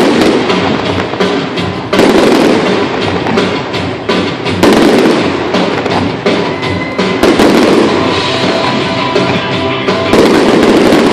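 Aerial fireworks bursting overhead, with a loud bang every two to three seconds and a continuous rumble of further bursts between them. Music plays along with the show.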